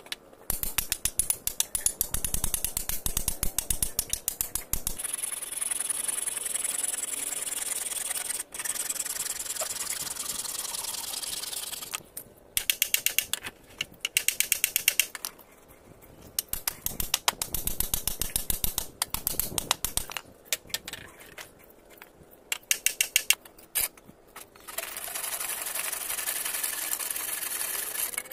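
Hoe head being fitted onto its wooden handle: runs of rapid knocking and tapping on wood and iron, several blows a second, in four bursts with pauses between.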